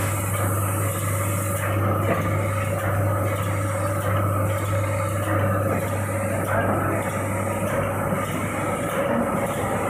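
Automatic screen printing machine running: a steady mechanical hum with a repeating cycle about once a second as the bottles are fed, printed and passed on.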